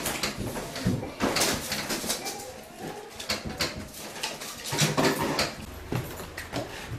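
Irregular knocking, clattering and rustling of people moving about and heading out of an earthquake-damaged house: handling of household objects and debris, footsteps and doors.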